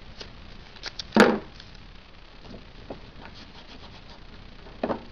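Blue masking tape pulled and torn off the roll, with one sharp rip about a second in, then light rubbing and small knocks as the tape is pressed onto a plastic aircraft fairing.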